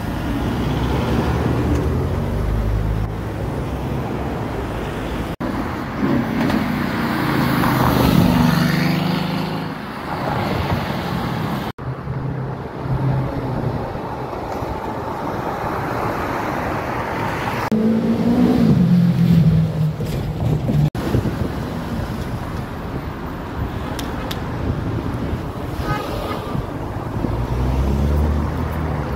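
Car engines and road traffic: cars drive past, their engine notes rising and then falling as they accelerate by. The sound breaks off abruptly three times where one clip cuts to the next.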